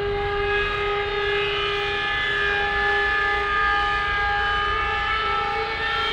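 Dark, droning background music: long held tones over a low rumble, the chord shifting slightly about halfway through.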